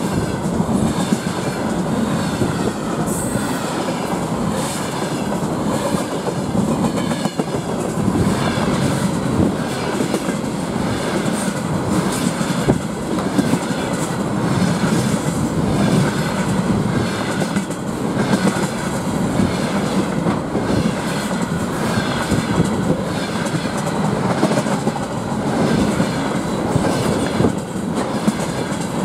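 Container freight train's loaded flatcars passing at speed close by: a steady rumble of wheels on rail with a continuous rapid clickety-clack as the wheelsets cross the rail joints.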